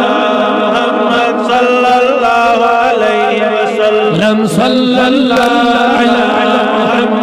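Male voices chanting a Kashmiri naat without instruments: a steady held drone underneath a melodic line that wavers and slides in pitch.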